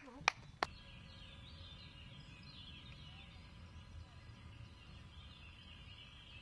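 Three hand claps in the first second, then birds singing faintly over a low, steady background rumble.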